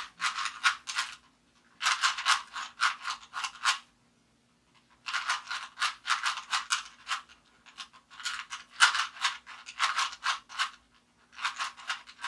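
Plastic Rubik's Cube being turned rapidly by hand, its layers clacking in quick runs of clicks, each run lasting one to two seconds, with short pauses between runs.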